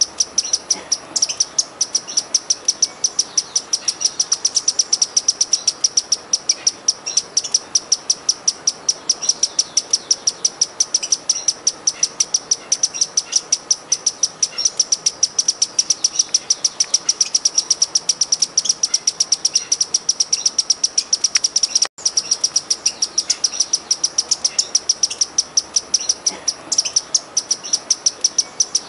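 Sparkling violetear hummingbird singing its monotonous song: a fast, evenly repeated series of short high chips, about five a second, that breaks off for an instant about two-thirds of the way through.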